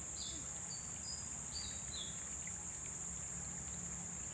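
Steady high-pitched insect drone, as of cicadas or crickets, with a few short high chirps in the first two seconds over a low rumble.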